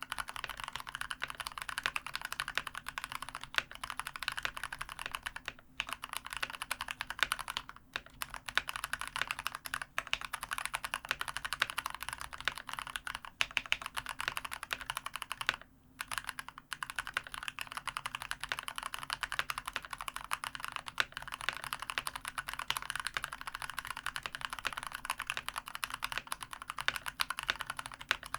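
Fast, continuous typing on a COX CK108 mechanical keyboard with spray-lubed Gateron Brown tactile switches: a dense patter of key strokes, broken by a few short pauses.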